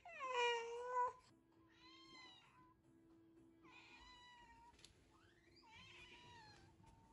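A long-haired cat meowing: one loud meow falling in pitch at the start, then three quieter meows spread over the next few seconds.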